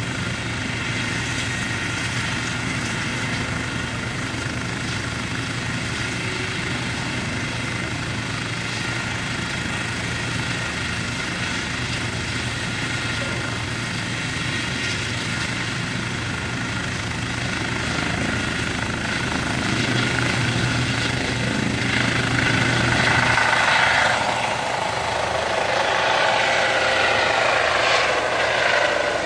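Light helicopter's turbine engine and rotor running steadily on the ground, then growing louder about two-thirds of the way through as it lifts off and climbs away. Its whine falls in pitch near the end.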